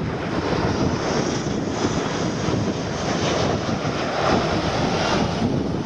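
Airbus A340-300's four CFM56 turbofan engines passing low on final approach, landing gear down: a steady jet rumble with a faint high whine.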